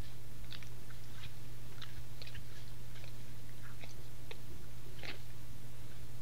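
Red deer grazing close to the trail camera: irregular crisp tearing and cropping sounds, roughly two a second, over a steady low hum.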